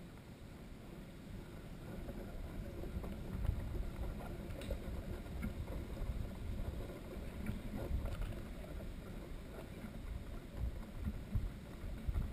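Wind buffeting the microphone: an uneven low rumble that swells about two seconds in and surges several times, with a few faint ticks.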